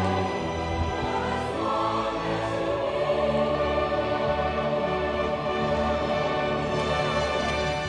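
Background music: a choir singing long held notes over orchestral accompaniment.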